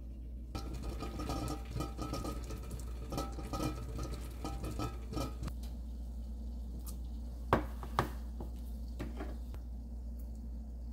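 Metal spoons scooping and scraping thick sauce pastes into a small ceramic bowl, with two sharp clinks of spoon on bowl a little past the middle.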